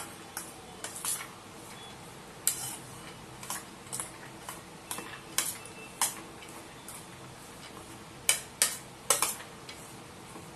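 A spoon clinking and scraping against a stainless-steel bowl as it stirs a moist mix of soaked chana dal and chopped vegetables, in irregular taps with the sharpest clinks clustered near the end.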